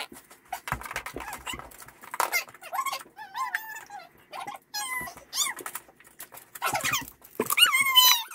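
Young children squealing and babbling without clear words, with a loud, wavering high-pitched squeal near the end right at the microphone, among a few knocks.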